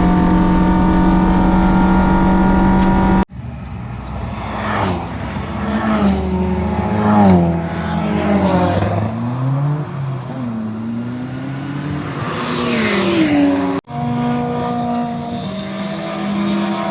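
Track-day car engines at speed: a steady engine drone that cuts off abruptly about three seconds in, then engines whose pitch repeatedly rises and falls as cars rev, change gear and pass, then another abrupt cut back to a steady engine drone near the end.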